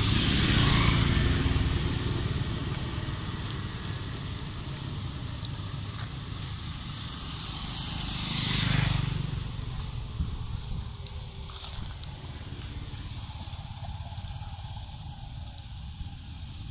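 Motor scooters passing on a road: two pass-bys that swell and fade, one about a second in and another around nine seconds in, over steady traffic noise.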